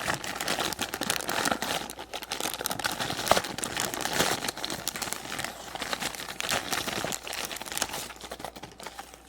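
Happy Meal toy packaging being torn open and crinkled by hand: continuous crackling and rustling with many small snaps, easing off near the end.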